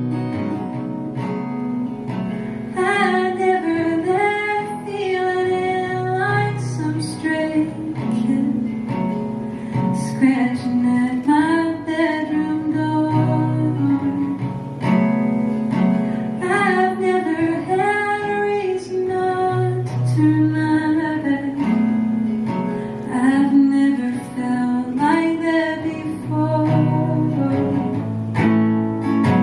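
Strummed acoustic guitar with a woman singing a melody over it, in phrases that return every few seconds.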